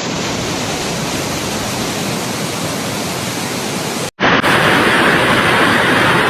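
Steady rushing of water. About four seconds in it cuts out for a moment and comes back louder and hissier.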